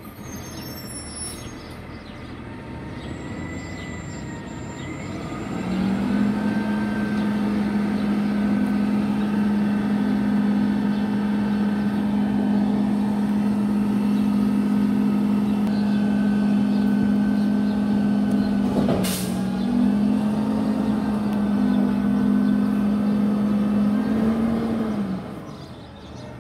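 Garbage truck with a few short high squeaks at the start. Its engine then rises to a higher speed and holds a loud, steady drone for nearly twenty seconds, as a refuse truck does when running its hydraulics. One sharp click comes about three-quarters through, and the drone drops away near the end.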